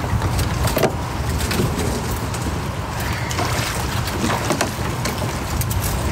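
Wind rumbling on the microphone over water sounds around a kayak, with a few light clicks.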